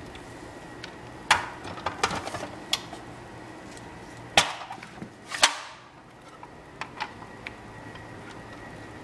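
Irregular sharp clacks and knocks of a white plastic hand-crank spiralizer being handled and moved. There is a cluster of them in the first three seconds, two loud ones around the middle and a few light ticks later, over a faint steady high whine.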